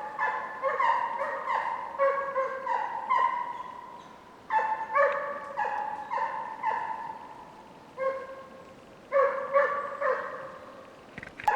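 Hunting hounds giving tongue on a hare's trail: three bouts of rapid baying calls, about three a second, with brief lulls between them. The calls are the hounds' voice in pursuit, heard while they drive the hare.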